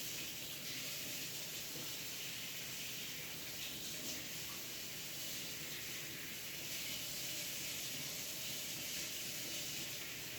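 Water running steadily from a tap into a sink while slime is washed through under it.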